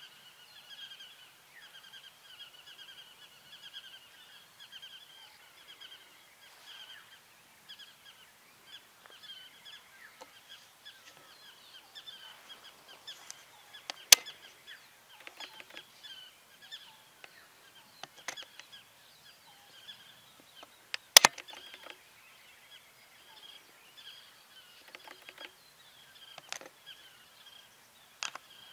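A chorus of small birds chirping, many short high calls overlapping throughout. Two sharp clicks stand out, one about halfway through and a louder one about two-thirds of the way through.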